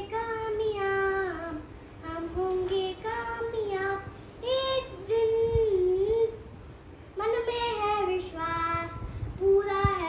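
A young girl singing solo without accompaniment, in sung phrases separated by short breaths.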